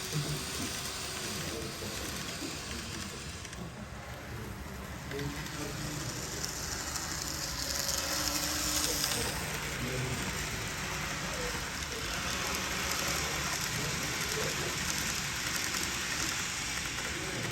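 N gauge model freight train running on the layout's track: a steady rushing hiss of wheels and small motor that swells twice, about six seconds in and again from about twelve seconds, with faint voices in the background.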